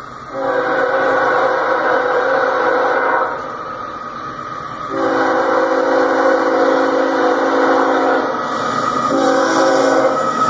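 Air horn of an approaching diesel freight locomotive sounding a multi-note chord in two long blasts and a shorter one, with the train's low rumble underneath. This is the start of the long-long-short-long grade-crossing warning.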